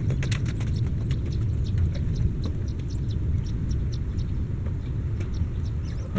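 Outdoor background: an uneven low rumble, with faint, short, high chirps of small birds and a few light clicks scattered through it.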